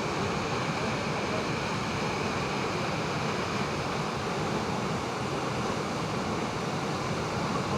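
Steady rush of a waterfall's falling water, even and unbroken.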